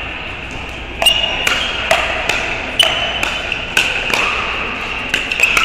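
Pickleball paddles hitting a plastic pickleball in a fast volley exchange at the net: a string of sharp pops, each with a short high ring, about two a second starting about a second in, echoing in an indoor hall.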